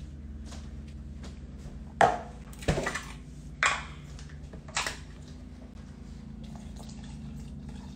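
Barware knocking and clinking on a countertop: four sharp knocks over about three seconds, over a low steady hum.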